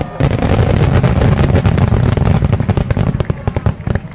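A large multi-break aerial firework shell: dozens of small sub-shells burst in a rapid, dense run of loud pops and crackles, starting just after the main break. The run lasts about three and a half seconds, then thins out and fades.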